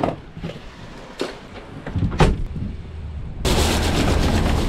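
Gear being packed up on a pickup tailgate, with a few knocks and one loud slam about two seconds in. From about three and a half seconds a Ram pickup truck drives over the beach gravel, a loud steady rush with a low rumble.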